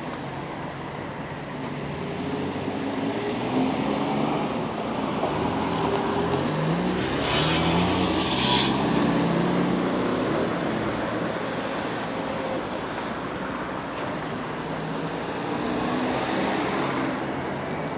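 Cars passing on a town street. One car's engine note climbs as it gets up to speed, and the car goes by close with tyre noise, loudest about eight seconds in. A second car passes near the end.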